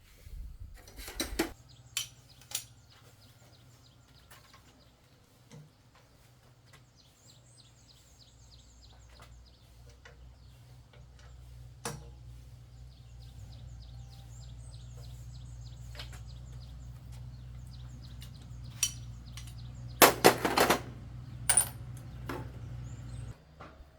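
Metal tools and parts clinking and knocking now and then, with a loud burst of clattering about two-thirds of the way in. Under it runs a steady low hum that slowly grows and cuts off suddenly near the end.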